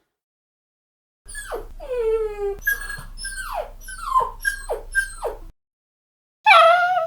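A dog whimpering and whining: a run of about seven short, high cries, each sliding down in pitch. A new cry starts just at the end.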